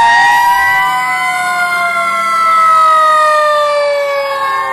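Fire truck sirens wailing loudly, several tones sliding slowly down in pitch together.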